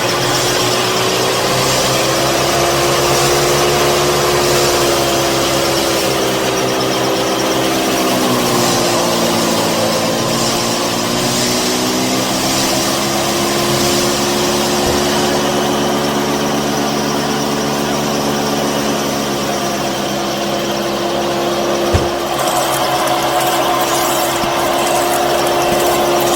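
Small electric motor running steadily with a whining hum. Its pitch sags, as if under load, about a third of the way through, then climbs back. One sharp click near the end.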